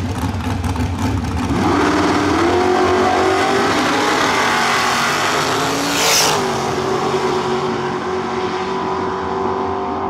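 Drag racing cars, a rear-engine dragster and a red door car, launching off the starting line at full throttle. A lumpy, choppy engine rumble gives way about a second and a half in to engine notes climbing in pitch in steps. They then hold a steady high note as the cars pull away down the strip, with a brief hiss about six seconds in.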